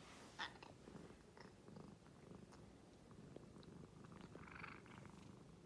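A domestic cat purring softly, with a few faint clicks and rustles, one slightly louder about half a second in.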